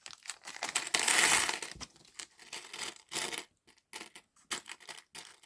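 Small metal butterfly charms clinking and rattling as they are handled. A string of short clicks, with a denser rattling stretch about a second in.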